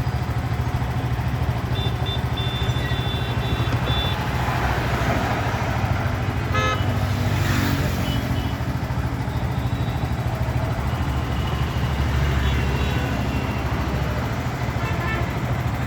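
Road traffic at a busy junction: a steady rumble of engines and tyres, with car and motorcycle horns tooting several times, a longer horn about two seconds in and another near the middle.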